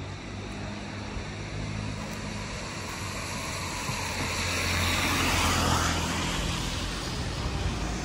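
Road traffic: a steady low engine hum, with a car driving past whose tyre and engine noise swells to its loudest a little past halfway, then fades.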